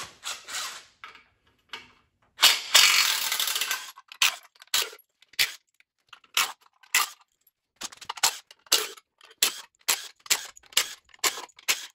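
A cordless drill spins out a bolt from the engine's front cover for about a second and a half. A string of short, sharp clicks and clinks follows, about one or two a second, as more bolts are worked loose and handled.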